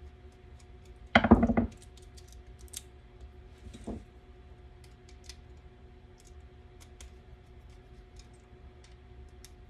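Clicks and knocks from the parts of a small brushed motor being handled and pried apart. There is a quick run of loud clacks about a second in, a softer knock near four seconds, and light ticks throughout.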